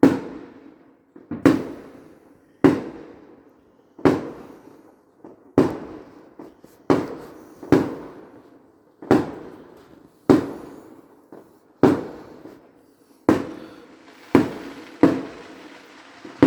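Fireworks going off in a steady barrage, heard through a window: about a dozen loud bangs, roughly one every second and a half, each echoing away before the next.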